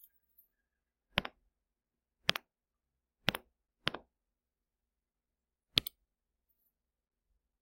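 Five short, sharp clicks, each a quick press-and-release pair, spaced unevenly about a second apart: a pointer selecting the highlighter pen and its colour in a drawing app's toolbar.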